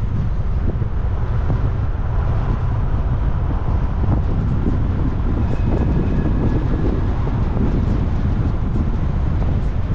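Steady low rumble of wind buffeting the microphone together with road noise while travelling along a street.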